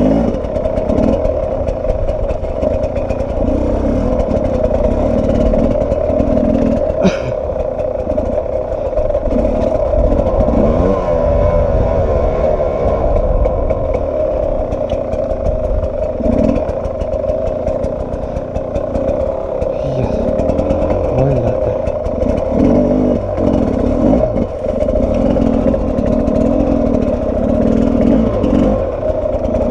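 Sherco 300 SE-R two-stroke enduro motorcycle engine running under way at a fairly steady pitch, with small rises and falls as the throttle changes. A single sharp knock about seven seconds in.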